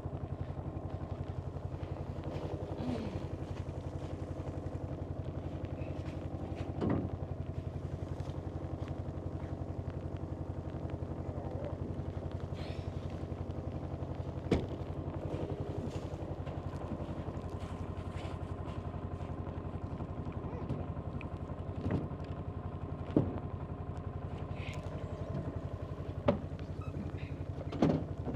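John Deere utility cart's engine running steadily, with a few sharp knocks scattered through it.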